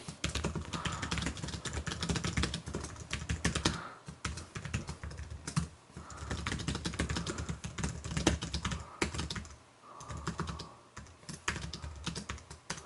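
Typing on a Logitech K810 Bluetooth keyboard: a quick run of low-profile keys clicking, in several bursts with short pauses between them.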